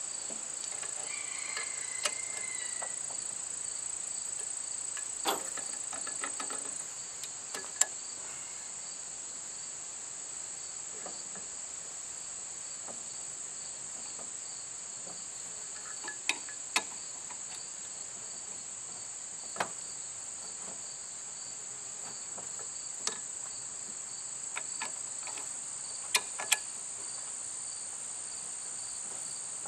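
Steady high-pitched insect chorus, with about nine sharp metallic clicks and clacks scattered through it as the hydraulic hose quick-couplers of the RK24 tractor's front loader are worked and snapped back onto their fittings.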